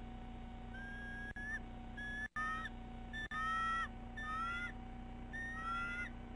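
Bald eagle calling: a series of about five thin, high whistled notes, each rising slightly and breaking off, about one a second.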